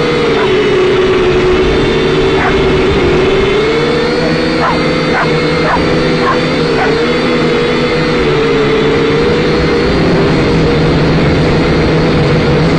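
Syma X5C quadcopter's small brushed motors and propellers whining steadily, the pitch wavering up and down as the throttle changes. A dog yips a few times, once at about two and a half seconds and several times around five to seven seconds in.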